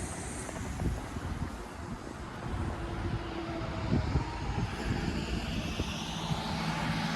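Low engine rumble with steady humming tones, a hiss swelling in the upper range near the end.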